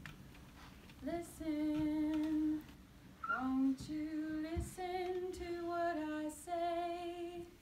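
A woman singing a slow melody in long held notes, phrase after phrase, with no accompaniment standing out beneath the voice.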